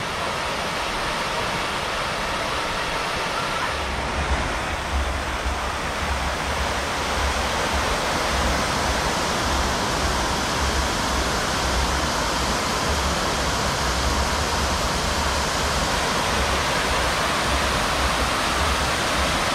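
Fountain jets falling into a pond: a steady rush of splashing water, with a low rumble joining about four seconds in.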